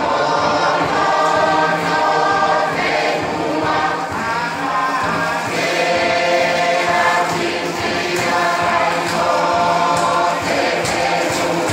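Tuvaluan fatele song: many voices singing together as a choir, loud and sustained, the notes held and changing every second or so.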